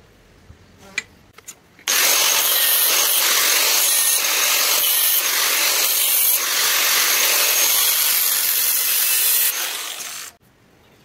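Power grinder working a leaf-spring steel sword blade: a loud, steady hiss that starts abruptly about two seconds in, runs for about eight seconds, then cuts off. A few light clicks come before it.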